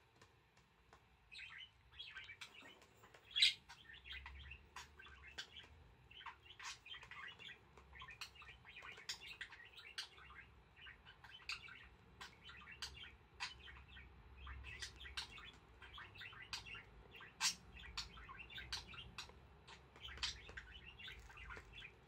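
Beakless budgerigar chattering in a fast, faint run of short chirps and clicks, starting about a second in, while its head is being scratched: affectionate chatter.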